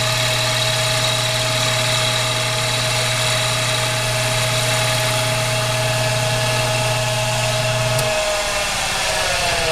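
Machinist lathe running steadily while a cutting tool turns a block of briar, knocking the flat sides off to round it. About eight seconds in the motor hum stops and the pitch falls as the lathe spins down.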